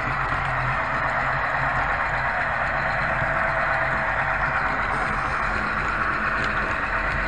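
An ESU sound decoder in an HO-scale Life-Like Proto 2000 GP30 model locomotive plays a diesel engine sound through its small speaker as the model runs. The sound is a steady drone, mixed with the model's running noise on the track.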